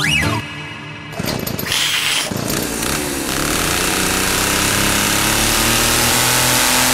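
A short falling whistle, then about a second in a loud, steady mechanical running noise like an engine or power tool comes in and holds.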